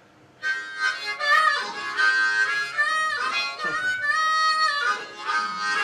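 Harmonica played solo as the opening of a song: chords and held notes starting about half a second in, with two short breaks between phrases.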